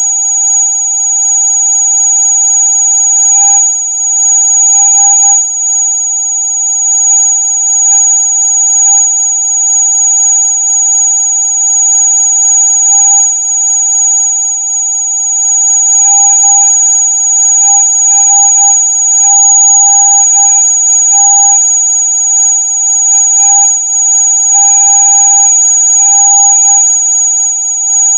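Electronic rat-repellent sound: several steady, high-pitched tones sounding together, the shrillest of them loudest, meant to drive rats away. Faint crackles flicker through it at irregular moments.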